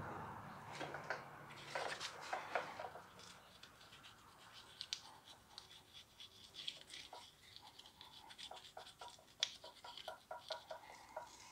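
Small brush working lubricant into the splines of a drive axle shaft: faint, irregular scratching of bristles with small ticks against the metal.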